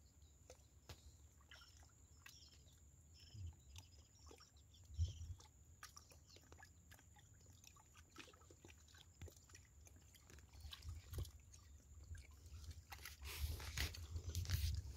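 Hands digging into a wet mud crab burrow: faint scattered clicks and squelches, with a few short low thumps that are loudest near the end.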